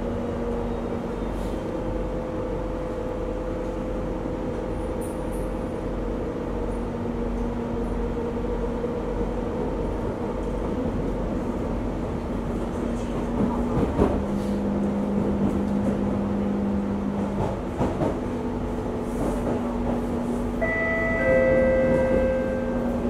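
Singapore MRT train running between stations, heard from inside the carriage: a steady rumble and hum. About 14 seconds in there is a clack, and the hum drops lower for a few seconds. Near the end, two steady tones sound, the second lower.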